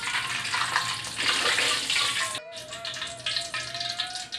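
Hot oil sizzling in a wok as fried eel pieces are lifted out on a slotted metal spatula: an even, steady hiss without popping, the sign that the eel is cooked through. About two and a half seconds in, the sizzle cuts off abruptly and a quieter stretch follows, with a faint steady wavering tone and a few light clicks.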